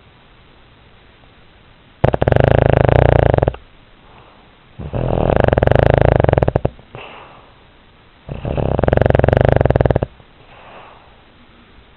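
A sleeping pet snoring: three loud, rattling snores about three seconds apart, each lasting one and a half to two seconds and each followed by a faint, softer breath sound.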